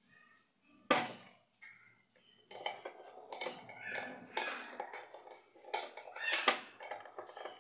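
Kitchen utensils and cookware clinking and knocking: one sharp knock about a second in, then a busy run of clatter from about two and a half seconds, with the loudest knock near the end.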